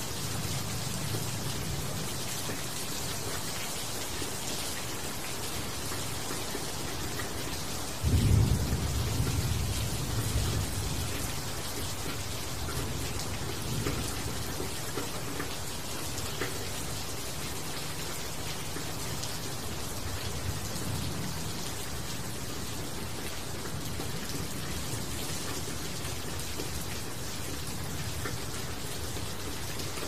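Steady rain falling on leaves. About eight seconds in, a sudden low rumble breaks in, the loudest thing here, and fades over a few seconds.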